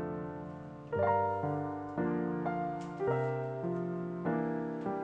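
Background instrumental music: a keyboard playing slow, gentle notes and chords. Each one is struck and then fades away.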